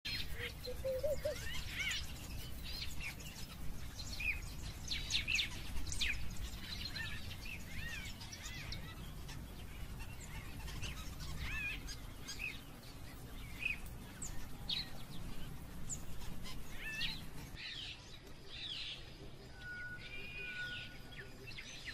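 Birds chirping and calling in many short high notes, over a low rumble that fades out about halfway through.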